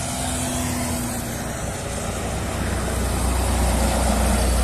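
A Volvo B10M coach's diesel engine and tyres on the highway, getting steadily louder as the coach approaches and loudest as it passes close by near the end.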